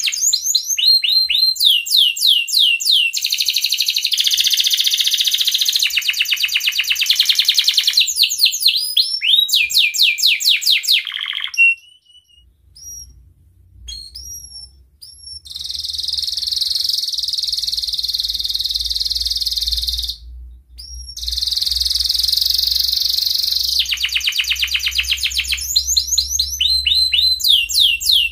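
Male domestic canary singing in breeding condition: fast trills of repeated falling notes, a short break with a few single chirps about halfway through, then a long buzzy rolling trill that breaks off briefly, and more fast falling trills near the end.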